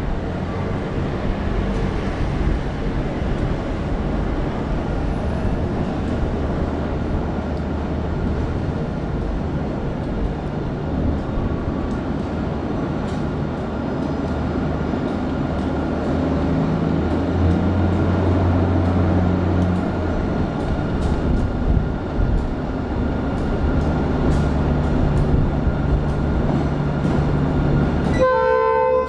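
Diesel locomotive running as it hauls a ballast hopper work train over elevated track switches, with a steady engine drone that rises and falls in pitch and light clicking from the wheels over the rails. About a second before the end, the locomotive's horn sounds a loud chord.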